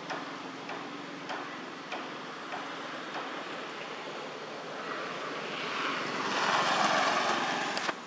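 Outdoor background noise with faint, evenly spaced ticks, swelling over several seconds into a louder rushing noise that cuts off suddenly near the end.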